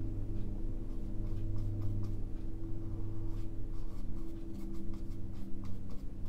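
Bristle brush dabbing and stroking oil paint onto a textured stretched canvas: a run of quick, faint, irregular scratchy strokes. Under it runs a steady low hum.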